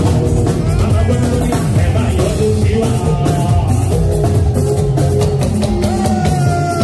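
Live band music, loud and steady: a man singing into a microphone over a drum kit and keyboard.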